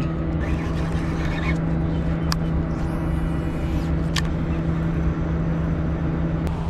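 A steady engine drone, an even low hum that holds one pitch, with about three faint sharp clicks.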